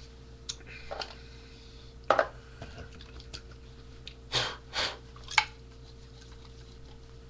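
A few sharp knocks and clicks of things being handled, the loudest about two seconds in, and two short breaths a little past halfway, over a faint steady electrical hum.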